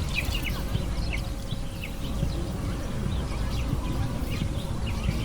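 A flock of small birds chirping: many short, quick chirps scattered irregularly through the whole stretch, over a steady low rumble of background noise.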